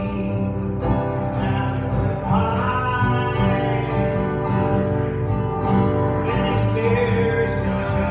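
A man singing and strumming an acoustic guitar in a country-style song, sung into a microphone.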